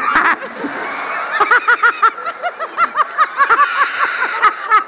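Theatre audience laughing, many voices at once, with the laughter swelling into rapid repeated bursts about a second and a half in.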